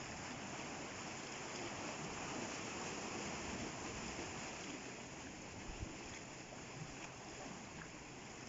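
Sea water washing over and around rocky coastal pools: a steady rushing wash that swells slightly a few seconds in, with a few small splashes near the end.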